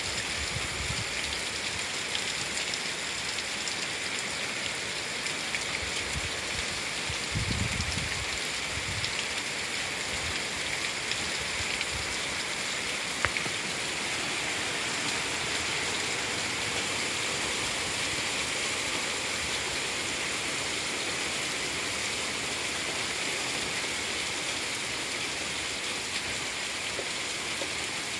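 Heavy rain, a downpour, falling steadily on a paved road and grass, with a single sharp click about thirteen seconds in.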